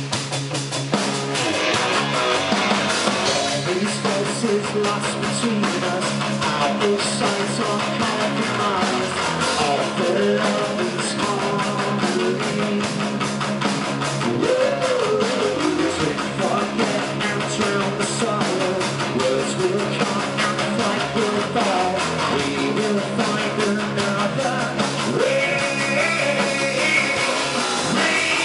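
Live rock band playing a song: electric guitar, bass guitar and drum kit.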